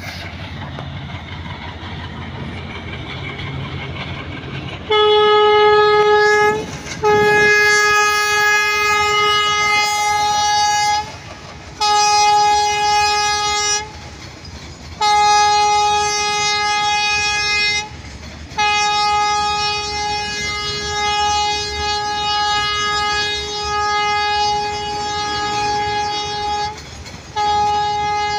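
A diesel-hauled freight train rumbling past. From about five seconds in, a train horn sounds on one steady pitch in six long blasts with short breaks, the longest lasting about eight seconds.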